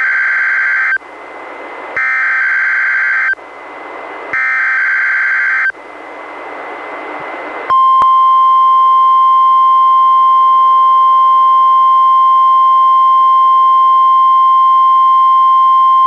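A weather radio plays three bursts of NOAA Weather Radio SAME digital header data, each a harsh buzzing warble about a second long, with radio hiss between them. About eight seconds in, the steady 1050 Hz warning alarm tone starts and holds loud. This is the weather radio's required weekly test of its alarm.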